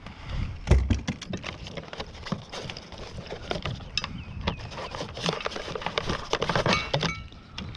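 Irregular knocks, clicks and rattles of a freshly caught bass and a hand-held fish scale being handled in a kayak, with a brief high tone near the end.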